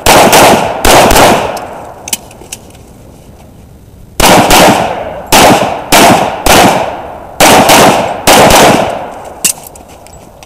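Handgun shots fired in quick pairs, about a dozen in all, each with a short echo. Four come in the first second and a half, then a pause of about three seconds, then the rest follow in steady pairs.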